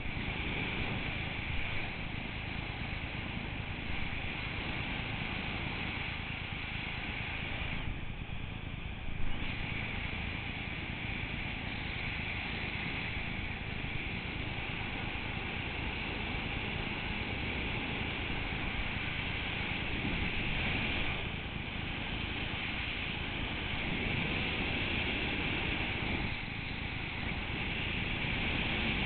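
Steady wind rushing over the camera's microphone as the skydiver descends through the air. About nine seconds in, it drops briefly and there is a short knock.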